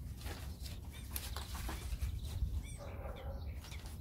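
Paper instruction sheets rustling and crinkling as they are handled, in short irregular crackles over a steady low rumble.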